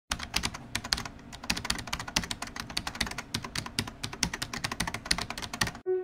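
Computer keyboard typing: a fast, uneven run of key clicks, about eight a second, stopping abruptly near the end.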